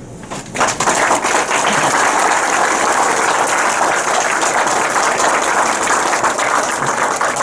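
Audience applauding, a dense patter of many hands clapping that starts about half a second in and keeps up steadily.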